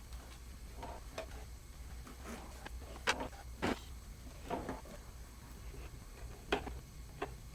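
Hand work on a rubber hose joint and its clamp at the idle control valve: a scattered series of small clicks and knocks, the loudest a little past three seconds in, over a steady low hum.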